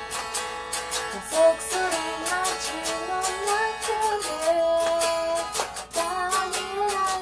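A woman singing while strumming an electric guitar: a sung melody over quick, even strummed chords.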